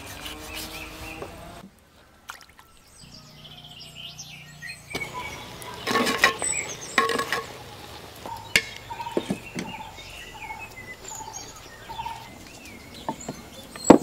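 Birds calling outdoors: a string of short repeated calls and chirps, with a few sharp knocks midway.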